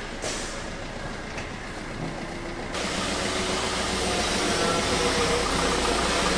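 An engine running steadily at idle, a low rumble with a steady hum over it, getting louder about three seconds in.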